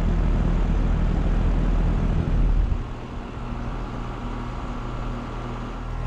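Carrier Sentry 5-ton central air conditioner's outdoor condensing unit running, its ECM condenser fan blowing air out through the top grille over a steady low hum. The heavy rush of air drops off about three seconds in, leaving the steady hum.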